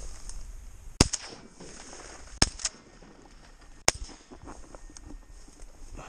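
Three shotgun shots, about a second and a half apart, each a sharp crack.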